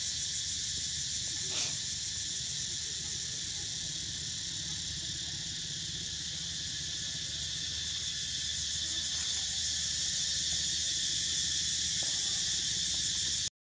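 Steady, high-pitched insect chorus buzzing without a break in the forest, with a brief faint knock about a second and a half in.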